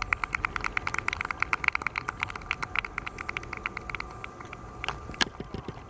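A rapid run of sharp clicks, about nine a second, that stops about four seconds in, followed by a single louder click near the end.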